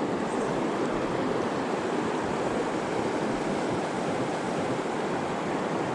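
Mountain river current rushing steadily, an even wash of moving water.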